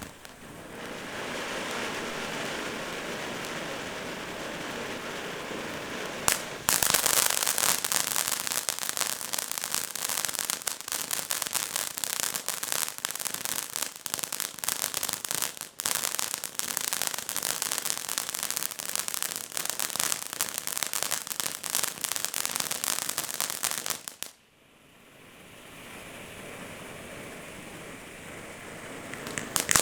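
Firework fountain going off: a steady hiss, then from about six seconds in a loud, dense crackling that stops abruptly some eighteen seconds later. Near the end a hiss builds up again.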